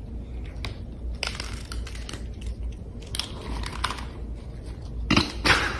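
Cats crunching dry kibble from a bowl: irregular crunches and small clicks, with a louder run of crunching near the end.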